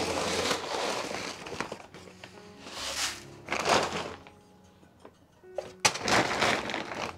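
Chicken feed scooped from a sack with a plastic jug scoop and poured into a plastic bucket, three rustling pours about a second long each, the last one starting with a sharp knock. Faint background music underneath.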